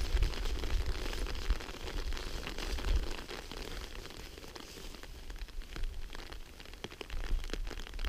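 Footsteps and rustling on the forest floor, with scattered small crackles of twigs and vegetation, and a low thud of wind on the microphone about three seconds in.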